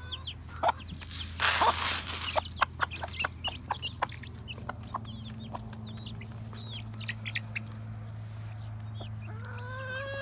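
Young chicks peeping with quick, repeated downward chirps while they peck crumble from a plastic trough feeder, with scattered sharp pecking clicks and a brief rustling scrape about two seconds in. A steady low hum runs underneath, and a hen gives a drawn-out call near the end.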